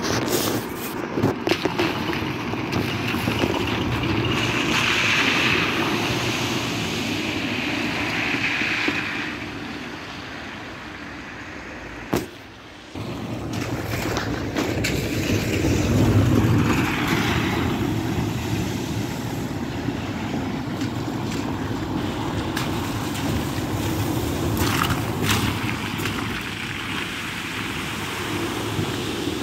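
Vehicles driving through the shallow floodwater of a road ford, tyres swishing and throwing up spray in a steady rushing noise. The sound dips briefly about twelve seconds in.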